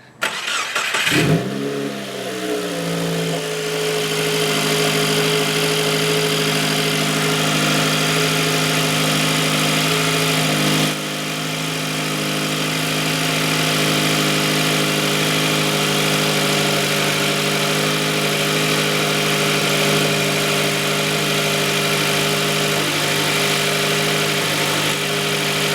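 2015 Subaru WRX's turbocharged flat-four started through a Nameless turboback exhaust: it catches about a second in, flares briefly and settles within a couple of seconds into a steady idle.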